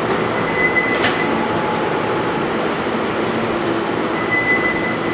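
R46 subway train running past on elevated track, with a steady rumble of wheels on rail. A thin high wheel squeal rises briefly about half a second in and again near the end, with a single sharp click about a second in.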